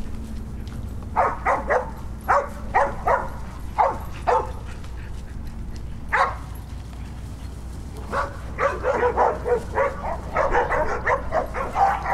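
Dogs barking in short sharp barks, about eight in a loose string over the first few seconds and a single one about six seconds in, then rapid, almost continuous barking and yipping over the last four seconds.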